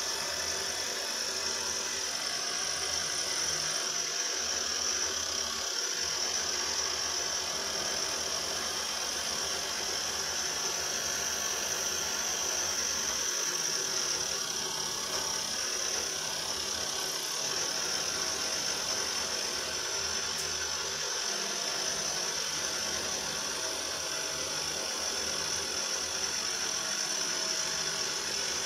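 Milling machine cutting a metal plate with an end mill: a steady run of spindle and cutting noise with a high whine that doesn't change.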